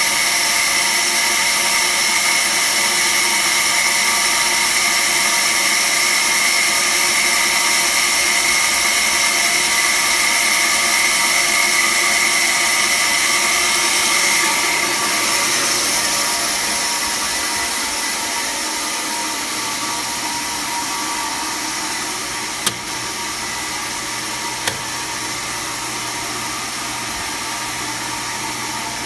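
Automatic band saw running: a steady, loud machine noise with a high whine. About halfway through, the whine drops away and the sound eases. Two sharp clicks come about two seconds apart near the end.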